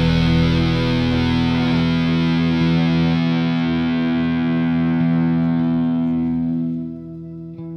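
Closing music: a sustained distorted electric-guitar chord ringing out and slowly fading, dropping in level near the end.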